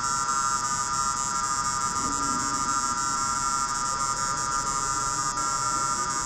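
Steady electronic buzzing drone, a dense cluster of high tones with a hiss above, holding level and then cutting off abruptly at the end.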